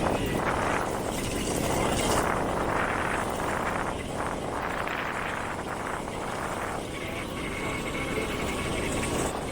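A motor vehicle running while driving along a road, its engine mixed with uneven rushing noise that swells and fades.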